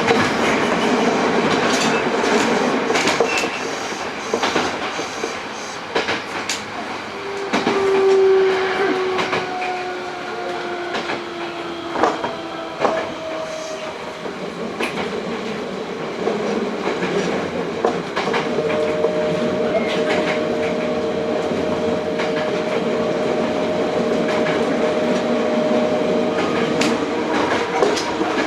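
Onboard running sound of a Hankyu 8000 series train with Toshiba GTO-VVVF traction equipment: a steady rumble with wheels clicking over rail joints. About a third of the way in, a pair of inverter tones slides slowly downward, and later a single steady tone holds for several seconds.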